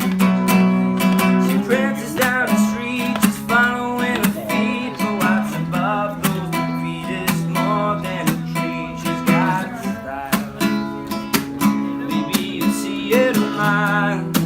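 Acoustic guitar strummed in a steady rhythm, its chords changing every few seconds, with a wavering melody line above the strumming.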